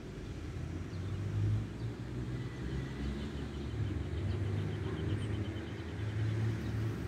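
A low, steady rumble, with faint rapid high ticking joining in about halfway through.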